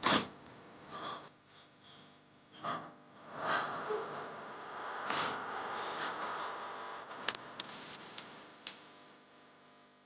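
A person's audible breaths and sniffs, several short swells in the first half, followed by a few sharp clicks around the last third over a soft steady background.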